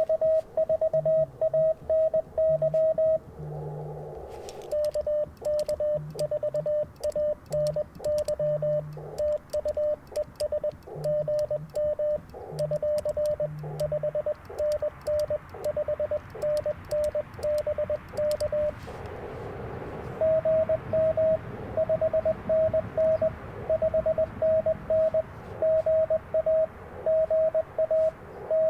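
Morse code (CW) from the Icom IC-705 ham radio transceiver: a steady tone keyed in dots and dashes, a received station's signal and the operator's own sidetone at slightly different pitches, trading turns in a 40-metre contact. Brief stretches of band hiss fill the gaps between overs, and light clicks of the paddle key sound while the operator sends.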